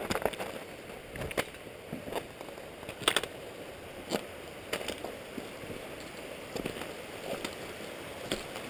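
Footsteps crunching in snow, roughly one every second, over the steady rush of a small waterfall.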